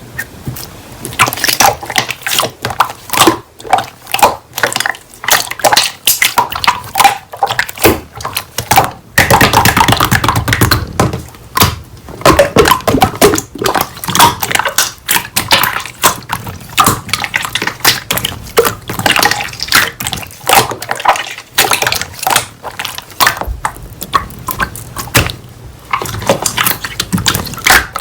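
Slime being squished and pressed by hand, giving a dense, irregular run of wet clicks and pops, with a brief pause about nine seconds in.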